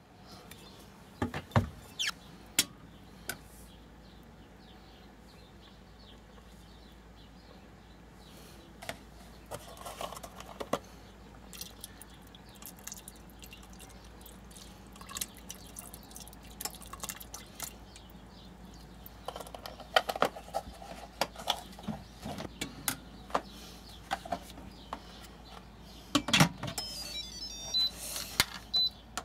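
Liquid poured into the stainless inner pot of an Instant Pot, first from a jug and later oat milk from a carton, with scattered clinks and knocks of containers against the pot. Near the end the lid is handled with a clatter and a run of short high beeps sounds.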